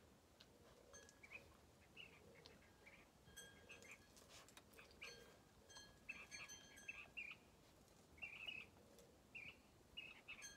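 Faint bird chirps: short calls repeating every second or so over quiet outdoor background.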